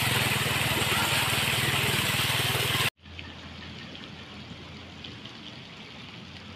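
Street noise on a flooded road: a loud, steady hiss with a low engine hum that cuts off abruptly about three seconds in, then a quieter steady wash of water with a faint engine hum.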